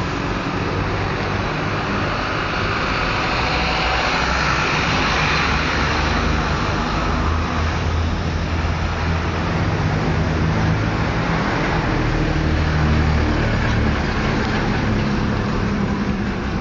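A small boat's motor running steadily, with a constant low hum under a rush of wind and water.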